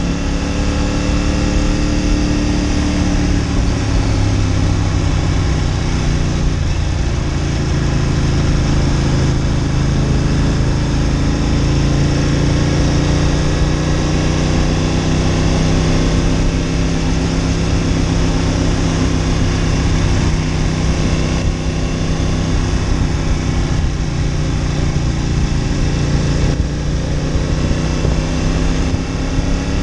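Ducati Monster 900's air-cooled V-twin running under way at moderate revs, its pitch dipping a little about three seconds in, holding steady, then rising again near the end.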